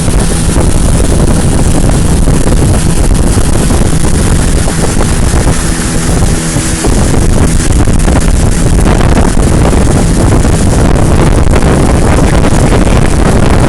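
A motorboat's engine running steadily under heavy wind noise on the microphone, with a low engine hum coming through at times.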